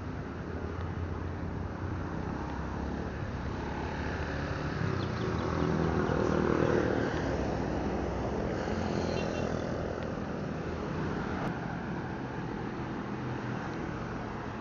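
Road traffic heard from a moving bicycle: motor vehicle engines running steadily, with one vehicle growing loudest about six seconds in and then fading.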